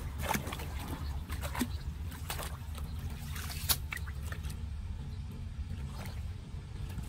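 Shallow muddy floodwater splashing and sloshing in short, irregular strokes as gloved hands and a small hand rake scrape and pull debris from a clogged street drain, over a steady low rumble. One sharper splash stands out about halfway through.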